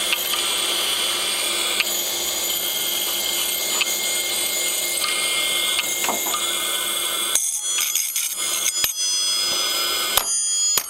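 An old 8 GB hard drive running with its cover off, its spinning platter giving a steady high whine and hiss. Its read/write head arm clicks now and then as it seeks while the damaged drive keeps trying to work. About seven seconds in the lower part of the sound drops away and a run of clicks follows.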